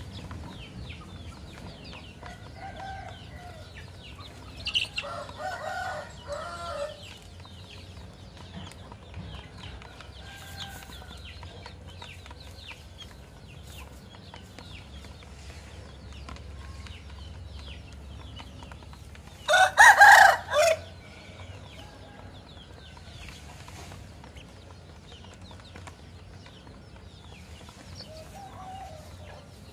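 Rooster crowing: a crow about five seconds in, then a much louder, close crow about twenty seconds in, with faint clucking between.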